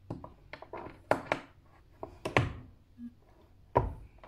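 Steel inline bullet-seating die and its parts being handled at a hand arbor press: a string of short clicks, taps and knocks as the die is pulled apart and set back down on the press base, the loudest knocks about two and a half seconds in and near the end.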